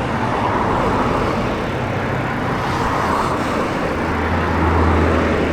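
Steady street traffic noise, with a vehicle's low engine hum growing louder about four seconds in.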